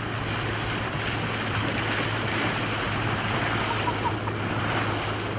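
Wind on the microphone and water washing around a small boat on open sea, even and steady, over a constant low hum.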